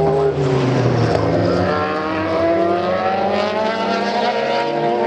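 Group C racing car engines at speed: the engine notes dip briefly near the start, then climb steadily for about three seconds as the cars accelerate, more than one engine heard at once.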